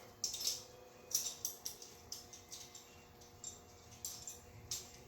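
Light metallic clicks and rattles, about a dozen at irregular intervals, from chainsaw chain and bar being handled; the loudest come in the first second or so.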